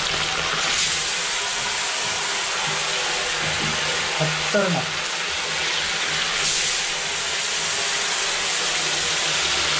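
Small tilapia deep-frying in very hot oil in a kadai: a steady, even sizzle of vigorously bubbling oil.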